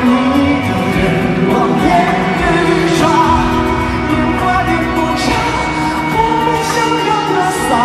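Live pop concert performance: a male singer sings into a handheld microphone over full band accompaniment.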